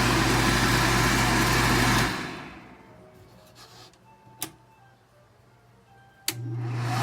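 Wall-mounted modunful automatic infrared-sensor hand dryer blowing with a steady rush of air and a low motor hum. It cuts off about two seconds in and winds down over about a second, a single click follows midway, and near the end it starts again with a click and blows at full strength.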